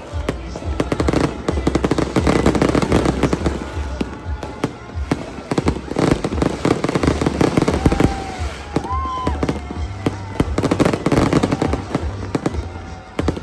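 Fireworks going off in a dense, rapid crackle of bangs and pops, with a couple of brief pitched whistles about eight to nine seconds in.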